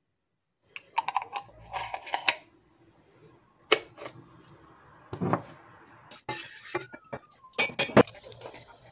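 A metal spoon scraping and clinking inside a glass jar of whole-grain mustard. Near the end, liquid is poured into a frying pan and a steady hiss begins.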